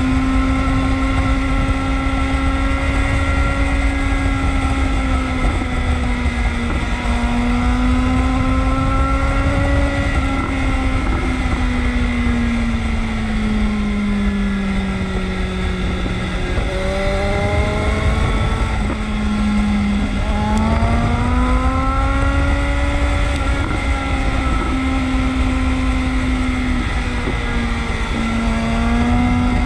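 Motorcycle engine running on the move. Its note sinks slowly about halfway through and then climbs again, with a few short dips along the way. Wind rushes over the microphone.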